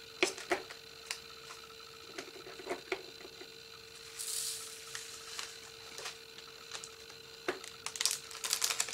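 Scattered small clicks and taps from handling small plastic diamond-painting drill pots, with a brief rustling hiss about four seconds in and a quick run of clicks near the end. A faint steady hum sits underneath.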